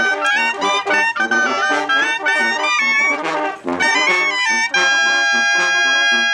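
Brass band music: a quick run of notes, then one long held chord from about five seconds in.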